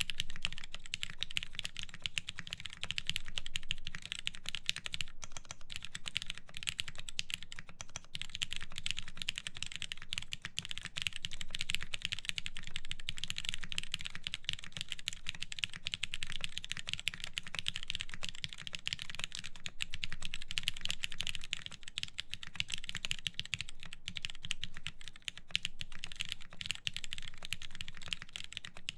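Continuous fast typing on a mechanical keyboard with lubed linear Cherry MX Black switches in a full aluminium plate, under DCS-profile keycaps: a steady stream of key strikes and bottom-outs.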